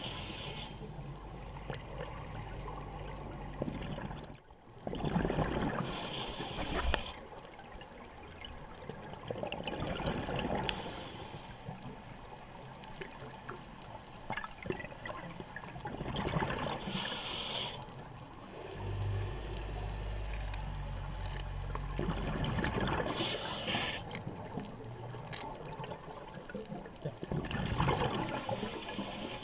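Scuba diver breathing through a regulator underwater: bubbly exhalations come about five times, every five to six seconds, with a low rumble between some of them.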